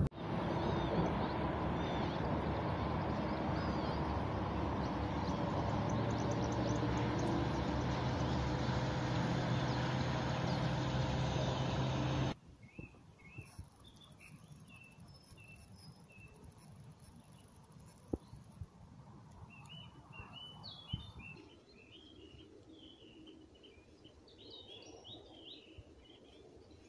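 A small boat's motor running steadily under wind and water noise, cut off abruptly about twelve seconds in. Then quiet, with small birds chirping in short calls, more of them toward the end.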